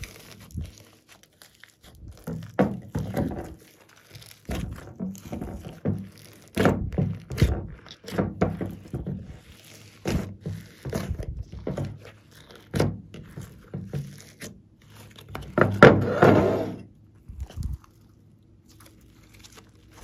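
Hands squishing and kneading glossy slime mixed with beads and glitter: irregular wet squelches, clicks and soft thuds, with a longer, louder squelch about three quarters of the way through.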